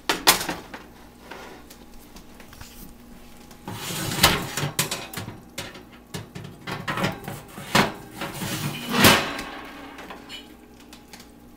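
Wire oven racks being shifted inside an open oven, together with a metal baking sheet: sharp metallic clanks and rattles, one just after the start, a rattling stretch about four seconds in, and louder clanks near eight and nine seconds.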